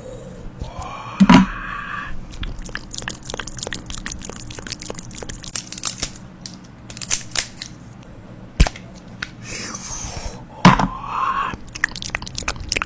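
Slime being kneaded and mixed by hand, with rapid sticky clicks and crackles and a few louder pops and squelches.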